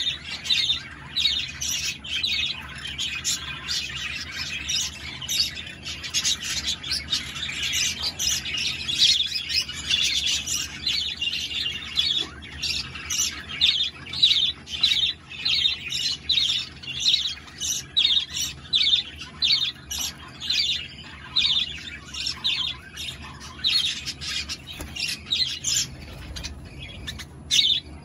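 Several green-cheeked conures calling in a steady stream of short, high chirps, several a second.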